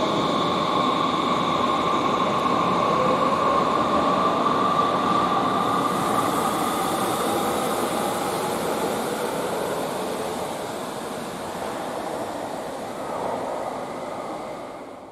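Eight-car electric train pulling out of an underground station: steady running and wheel noise with a faint motor whine, slowly fading as it leaves.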